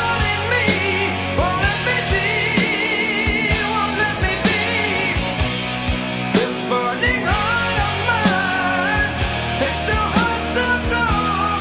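Rock band music: an electric guitar solo of bent, vibrato-laden lead notes over bass and drums.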